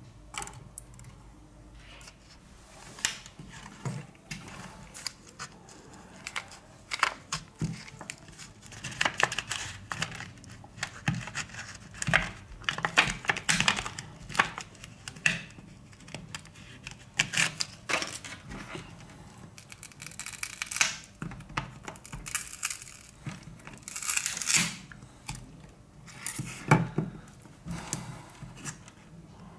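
Adhesive pull tabs being stretched and peeled out from under a smartphone's lithium-ion battery: irregular crinkling and tearing of plastic film, mixed with scattered sharp clicks and taps of the tools and phone on the work surface.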